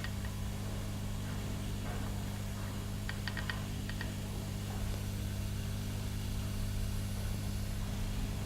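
Steady low electrical hum from the repair-bench equipment, with a short cluster of small clicks about three seconds in.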